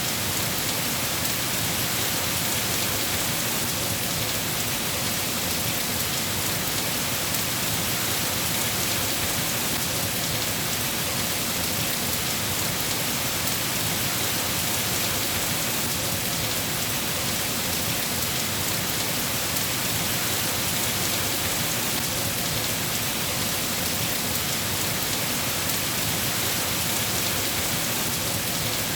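Steady heavy rain falling on surfaces, a dense even hiss with no distinct thunder claps.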